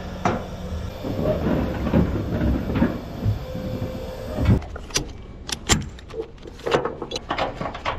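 A red beavertail trailer's hydraulic loading ramps lowering: a steady low hum with creaks and knocks. About four and a half seconds in it gives way to a ratchet strap being released, a run of sharp metallic clicks and rattles.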